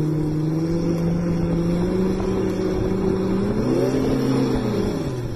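Outboard motor running at high throttle on a boat grounded in very shallow water, its propeller churning up spray. The engine hum holds steady, rises in pitch about three and a half seconds in, then drops back near the end.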